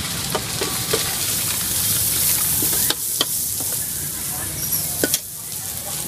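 Street-market background noise: a steady hiss over a low hum, with a few short clicks and knocks scattered through it.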